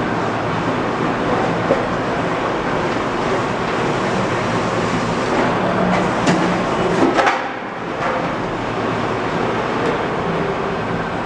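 Electric sheet-metal power roll former running steadily with a low hum. Around six to seven seconds in, a sheet of 0.040-inch aluminum jacketing clatters and scrapes as it is fed through the rollers and curled into a coil, and the running sound drops briefly just after.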